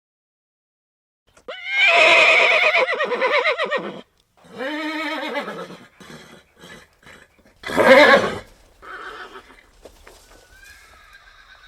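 Horses whinnying, as a run of separate calls. A long, loud, quavering whinny starts about a second and a half in, followed by a shorter, lower call, a few brief sounds, another loud short call near eight seconds, and then fainter calls.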